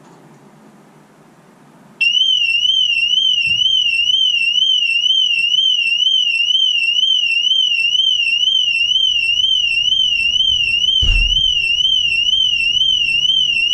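BMW car alarm going off: a loud, fast warbling siren tone that starts suddenly about two seconds in and keeps rising and falling a few times a second. A thump sounds under it about eleven seconds in.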